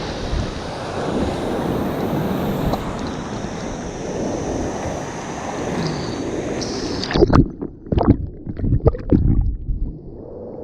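Waterfall pouring down close to the microphone: a loud, steady rush of falling water. About seven seconds in, the sound turns muffled and breaks into loud, irregular thumps and splashes for a couple of seconds, then settles into a duller, quieter rush.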